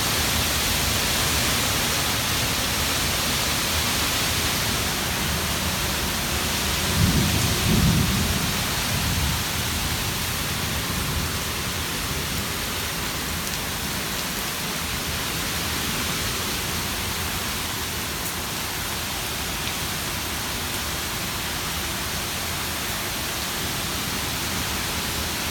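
Strong wind with a heavy downpour, a steady loud hiss of rain, with a louder low rumble about seven to nine seconds in.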